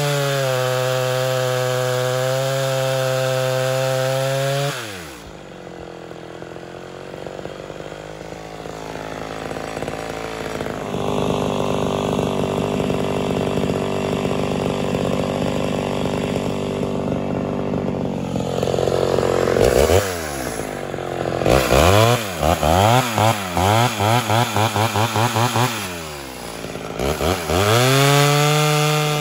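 Ported Homelite Super XL Auto two-stroke chainsaw cutting a log at full throttle, then dropping off to idle about five seconds in. After a long stretch of lower running it is blipped on and off the throttle in a quick series of revs, then climbs back to full speed into the next cut.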